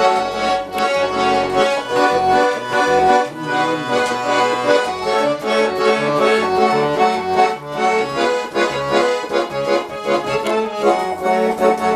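Accordion playing an instrumental break in a folk-style song: a melody over changing low bass notes and chords.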